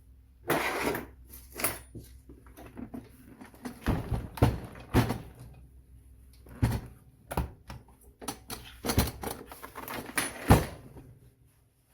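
Parts of an electric pressure rice cooker being handled and taken apart: a string of irregular sharp clicks and knocks, with a short scraping rustle about half a second in.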